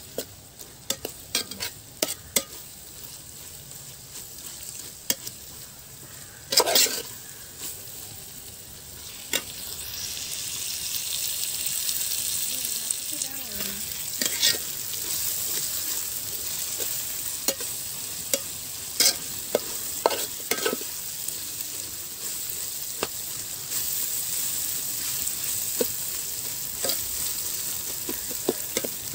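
Sliced onions frying and sizzling in coconut oil in a metal pot, with a metal spoon scraping and clicking against the pot as they are stirred; the onions are nearly sautéed soft. The sizzle grows louder about ten seconds in.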